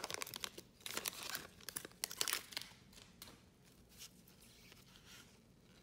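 Foil wrapper of a Goodwin Champions trading-card pack crinkling and tearing as it is ripped open. After about two and a half seconds the crackling dies down to a few faint rustles and clicks as the cards are handled.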